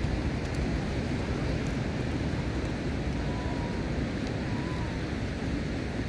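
Wind buffeting the microphone, a steady rushing noise with an uneven low rumble, over the open-air wash of nearby surf.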